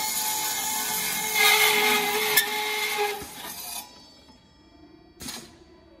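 Inline circular cut-off saw running and cutting through a roll-formed 1 mm galvanised steel TDC duct profile, louder for about a second in the middle of the cut with a sharp click near its end. The saw stops a little under four seconds in, and a single short knock follows about a second later.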